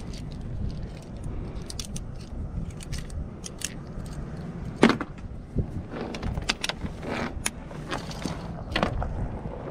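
Clinks and rattles of sailboat rigging hardware, metal shackles and a wire stay, being handled at the bow fitting. The clicks are scattered and irregular, with one sharper clack a little before halfway.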